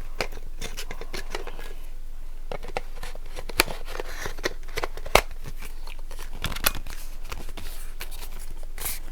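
Plastic clicking and rubbing as a brush attachment is fitted and twisted onto the handle of a blow dryer round brush, with a few sharper clicks around the middle.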